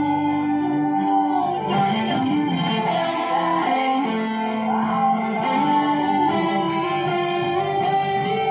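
Electric guitar played through a Deviser TG-30 practice amplifier: a lead melody of held notes that slide and bend from one pitch to the next.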